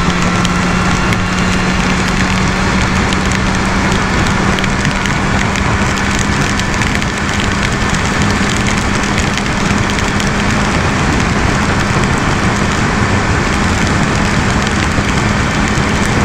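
Motorcycle riding at speed through heavy rain: a dense, steady rush of rain and wind noise over the microphone, with the BMW S1000RR's inline-four engine holding one steady low note underneath.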